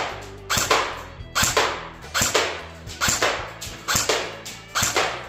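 A&K M14 airsoft electric rifle firing single shots through a chronograph, a sharp pop about every 0.8 s, with faint background music underneath.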